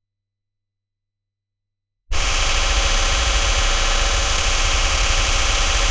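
Video-glitch noise sound effect: silence, then about two seconds in a loud burst of static with a heavy low hum cuts in suddenly and runs on steadily.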